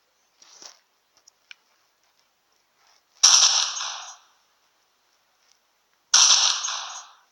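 A sound effect played twice, the same both times: a sudden sharp bang that dies away over about a second, with the two bangs about three seconds apart.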